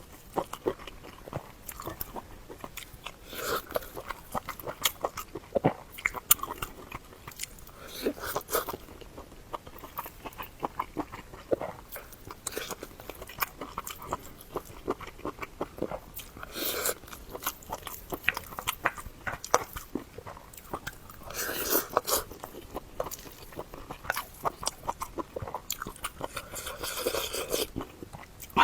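Close-up eating sounds: biting and chewing food with irregular crunchy clicks, broken by a few longer, louder noisy moments.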